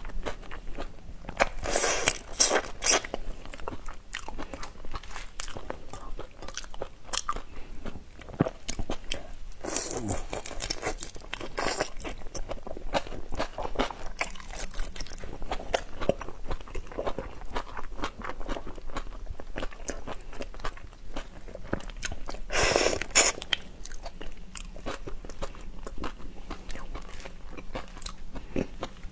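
Close-miked biting and chewing of whole shrimp with the shells on: the shells crunch and crackle between the teeth, with a few louder crunching bites near the start, about ten seconds in, and past twenty seconds.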